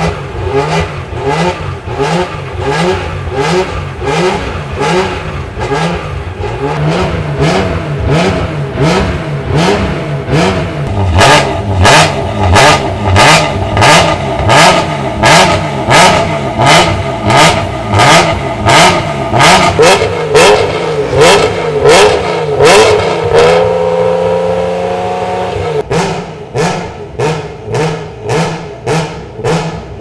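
BMW S50B32 3.2-litre straight-six of a 1996 M3 E36 GTR race car, revved in neutral with quick, repeated throttle blips about one and a half a second. The blips grow louder about eleven seconds in. Around twenty seconds in the revs are held up at a steady pitch for a few seconds, then short sharp blips start again.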